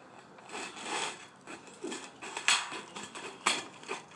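Metal snips cutting sheet-metal Z-bar flashing, a series of separate crisp snips about a second apart.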